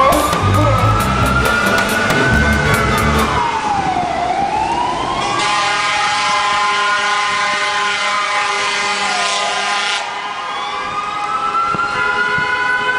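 Siren wailing, its pitch rising and falling slowly, one swing about every five seconds. It plays over a music track whose heavy beat drops out from about three seconds in, leaves a steady held chord, and comes back near the end.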